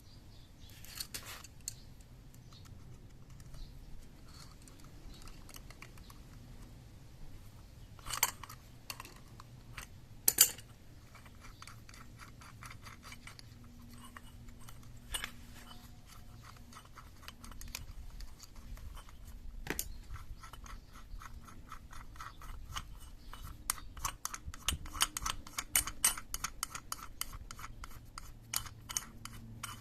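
Metal hand tools at work on a scooter gearbox: scattered clicks and scrapes, two sharper metal knocks about 8 and 10 seconds in, then a long run of rapid clicking through the second half.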